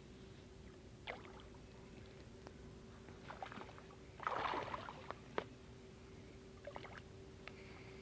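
A hooked bass splashing at the surface as it is played to the boat: a few short splashes, the biggest about four seconds in, over a faint steady hum.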